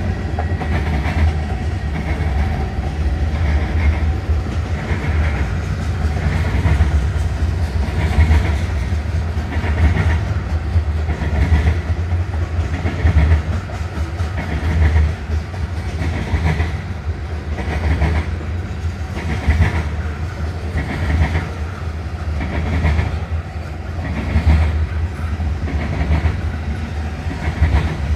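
Manifest freight train rolling past with a steady low rumble, its wheels clacking over rail joints in an even rhythm about once a second.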